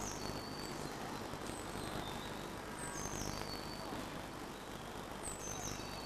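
A small songbird singing short high phrases that fall in pitch, repeated about every two and a half seconds, over a steady background hiss.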